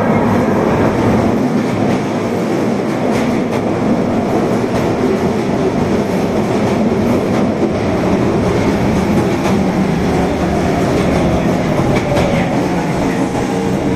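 Osaka Metro Tanimachi Line subway train running, a steady rumble with wheels clicking over the rail joints.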